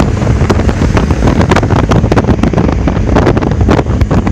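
Heavy wind buffeting the microphone of a camera carried on a motorcycle at highway speed, a dense, gusty rush with the low rumble of the ride underneath.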